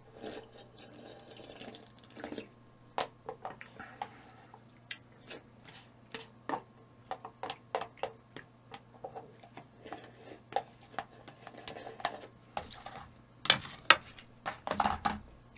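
Close-miked eating sounds: irregular wet clicks and smacks of chewing, with a few sharper, louder ones near the end.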